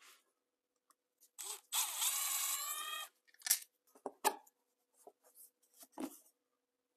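Hand work on the clutch-cover bolts of a Suzuki TS185 engine: a scraping, tearing noise lasting about a second and a half, then several short, sharp clicks and taps of small metal parts.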